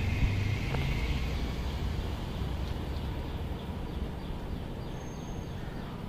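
Steady low rumble of distant road traffic. A falling whistle fades out in the first second or so, and a run of faint, rapid high chirps comes in the second half.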